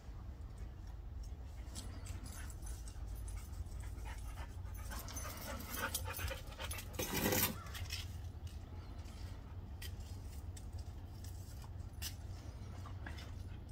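Two puppies playing tug with a rope toy: dog sounds and scuffling, with a louder burst about seven seconds in.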